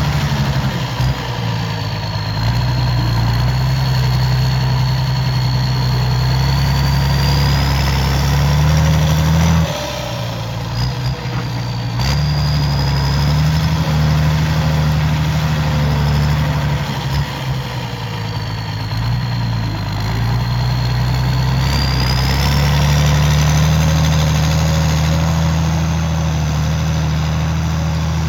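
CBT 1105 tractor's Mercedes-Benz OM 366 six-cylinder diesel engine running hard at work, a deep steady rumble that eases off briefly about ten seconds in and again a little before twenty seconds, then picks back up. A faint high whine rises and falls along with the engine.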